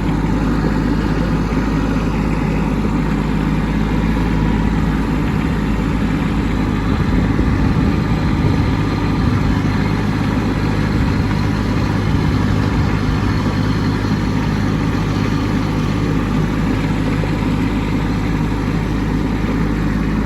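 Kubota B2601 compact tractor's three-cylinder diesel engine running steadily.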